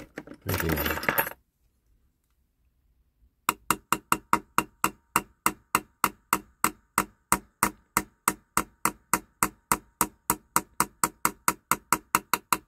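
Small hammer tapping quickly and evenly, about four or five light taps a second, on a small metal bell to set it into the roof of a diecast Dinky Bedford fire engine cab, each tap with a brief metallic ring. The tapping starts about three and a half seconds in, after a short handling noise at the start.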